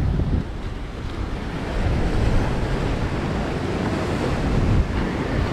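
Ocean surf washing onto a sandy beach, with wind buffeting the microphone in a low, uneven rumble.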